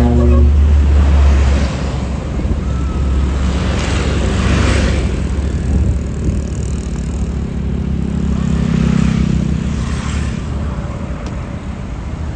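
Heavy low engine rumble of a large diesel vehicle, most likely a tour bus, loudest in the first second or so. Swells of passing-vehicle noise follow around four and ten seconds in.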